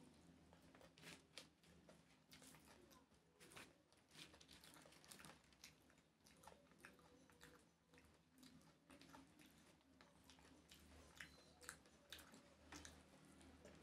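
Faint eating sounds: fingers squishing and mixing rice with curries on a banana leaf, and mouth chewing, heard as many small, irregular wet clicks and crackles.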